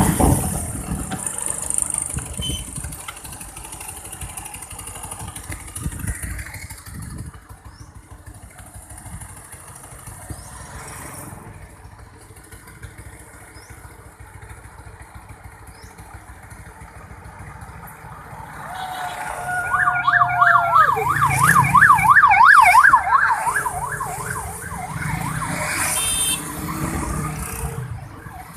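Vehicle road and wind noise, then about two-thirds of the way in an electronic siren sounds a short steady note that drops away, followed by about three seconds of fast yelping wail.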